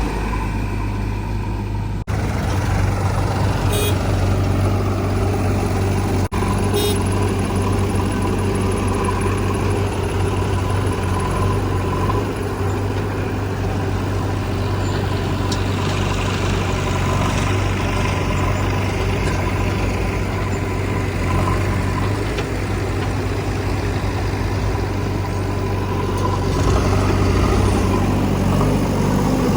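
Heavy diesel machinery running steadily: the engine of a backhoe loader working alongside a tractor. The sound breaks off sharply twice in the first several seconds.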